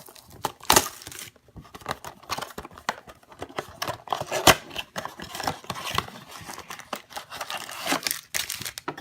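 Trading-card blaster box packaging being torn open: plastic wrap crinkling and cardboard tearing, with irregular crackling and a couple of sharp snaps.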